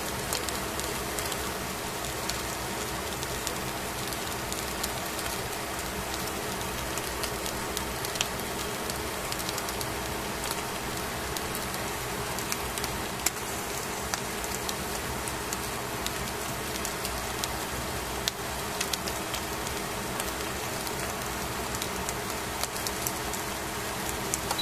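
Salted fish fillets sizzling on aluminium foil in a metal pan: a steady hiss with scattered small crackles and pops, over a faint steady hum.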